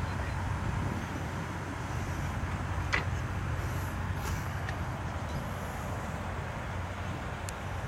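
Toyota Tundra pickup truck running with a steady low rumble, with one sharp knock about three seconds in and a few fainter clicks.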